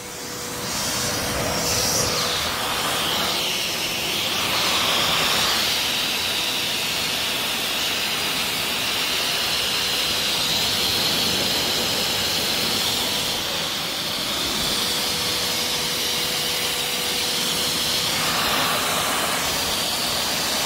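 Canister pet blow dryer running, blowing air through its hose and nozzle with a steady rushing hiss and a high motor whine. It gets louder within the first second, then holds steady.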